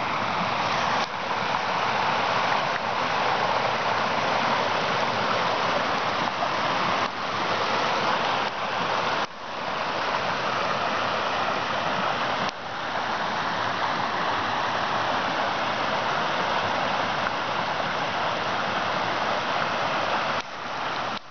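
A small woodland stream cascading over rocks: a steady rush of running water.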